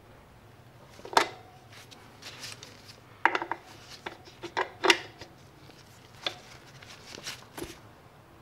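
Channel-lock pliers clinking against a seized steel chain adjuster bolt on an aluminium swingarm: a series of sharp metal clicks, about eight in all, as the jaws grip and slip. The bolt is seized up and does not break loose.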